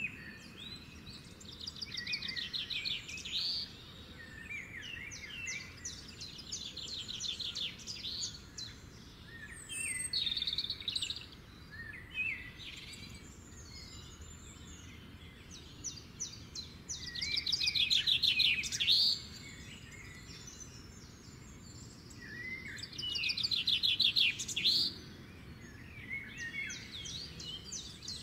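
Songbirds singing: repeated fast trilled phrases about a second or two long, with short chirps and whistles between them, over a steady low background noise. The loudest trills come a little past halfway and again near the end.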